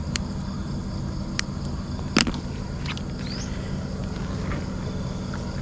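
A steady low motor hum, with a few sharp clicks and a short rising chirp over it.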